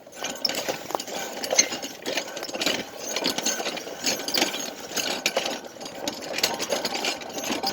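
Pedal car being pedaled hard along a road, its chain drive and wheels clattering with a continuous run of irregular clicks and rattles.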